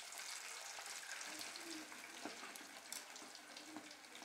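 Aval (poha) and onion pakoda batter deep-frying in hot oil: a steady sizzling hiss sprinkled with many small crackles as the pieces cook.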